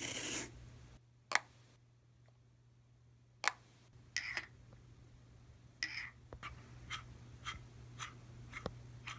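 Close-miked handling sounds: a brief rustle as a foam case insert is lifted, then sharp isolated clicks and taps as a black tube with a red end cap is handled and its sections are fitted together, ending in a run of light clicks about two a second. A low steady hum sits underneath.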